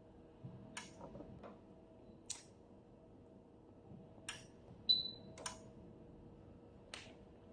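Scattered sharp clicks and taps, with one short high-pitched beep from a Hantek HDM3065 digital multimeter about five seconds in. The beep is the meter's probe-hold signal that it has found a stable reading and recorded it.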